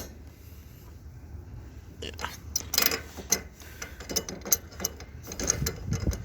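Metal wrenches working threaded fittings on a water pipe: a run of irregular metallic clicks and scrapes starting about two seconds in, as a still-loose joint is tightened against a counter-held wrench.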